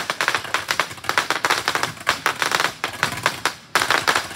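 Aerial fireworks crackling: a dense, rapid run of sharp pops from crackling stars. There is a brief lull about three and a half seconds in, then the crackling starts again.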